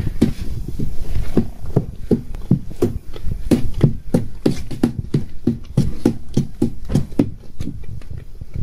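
A hand squelching through crushed red grape must in a plastic tub in steady strokes, about three a second. It is punching the floating cap of skins back down into the juice during fermentation.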